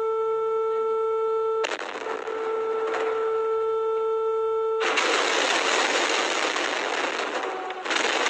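Emergency alert broadcast tone: a steady buzzy tone that is joined by hiss about a second and a half in and drowned out by loud static-like noise about five seconds in, with a few crackles near the end.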